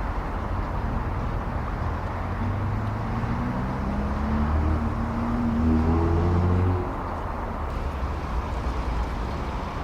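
Outdoor traffic rumble with a motor vehicle's engine coming through, its pitch rising slightly and loudest about six seconds in, then falling away suddenly about seven seconds in.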